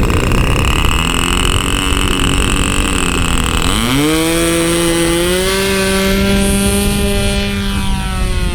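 Engine of a vintage Graupner VarioProp Taxi RC model plane running; its pitch climbs sharply about four seconds in, holds high, then starts to drop near the end. A low rumble of wind on the microphone runs underneath.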